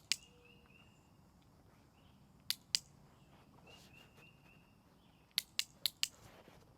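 A dog-training clicker is snapped several times: two quick clicks at the start, two more about two and a half seconds in, and four in quick succession after about five seconds. These are the marker clicks that pair the sound with food for puppies. Faint bird chirps sound in the background.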